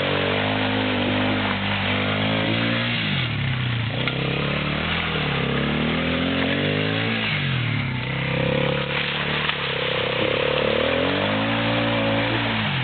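Small youth ATV engine running and being revved, its pitch climbing and dropping back about three times.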